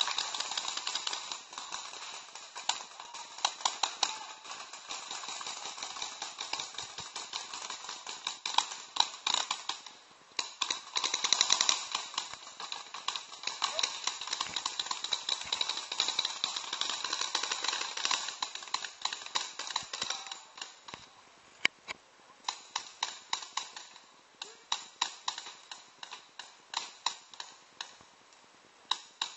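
Paintball markers firing: rapid strings of sharp pops, many per second, with volleys thinning out to spaced single shots after about twenty seconds.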